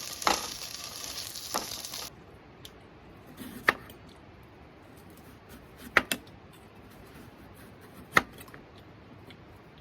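A fire crackling and hissing in a fire pit, cutting off suddenly about two seconds in, then a few sharp snaps spread over the rest.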